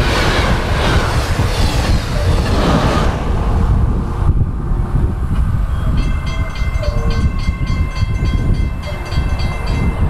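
Train passing in a recreated horn-and-Doppler sound effect, just after the K5LA horn has sounded: a heavy rumble of the cars on the rails, with a bright noisy wash that fades over the first few seconds. From about six seconds in, fast regular ticking over a few high steady tones joins the rumble.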